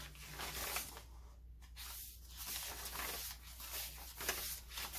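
Pages of a handmade journal of coffee-dyed paper being turned and handled, giving several soft paper rustles.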